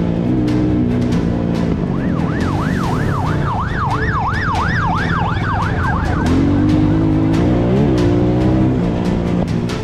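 Police siren sounding for a few seconds in the middle, its pitch sweeping up and down in quick cycles that speed up into a fast yelp before it stops, over background music.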